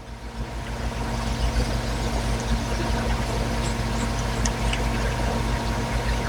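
A steady mechanical hum like a motor or fan running, building up over about the first second and then holding level, with a few faint light clicks.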